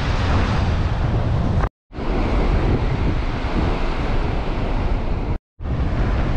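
Wind rumbling on the microphone over the hiss of surf washing up a sandy beach. The sound cuts out completely twice, briefly, about two seconds in and again near the end.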